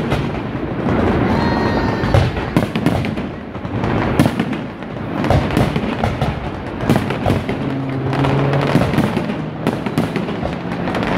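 Fireworks display at close range: a dense, continuous crackling of many bursts, with sharper bangs scattered throughout.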